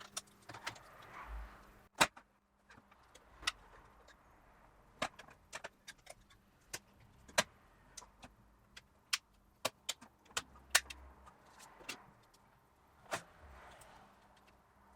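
Irregular light clicks and taps of a headset's small plastic parts being handled and fitted together during reassembly, with a couple of sharper knocks about two seconds in and near eleven seconds.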